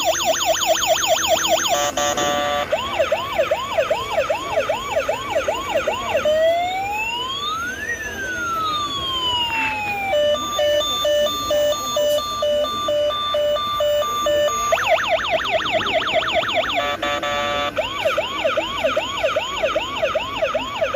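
Electronic emergency siren cycling through its patterns: a fast yelp of about four rising sweeps a second, then slow rising and falling wails that overlap around the middle, then a stepped two-tone hi-lo alternation, and back to the fast yelp near the end.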